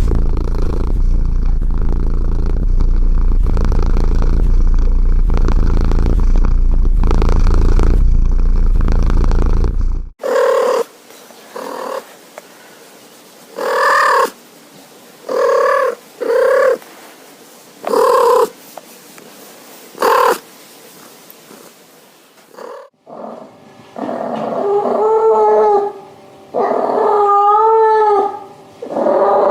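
A domestic cat purring steadily for about ten seconds, then a string of about six short meows. Near the end come longer, wavering whining calls.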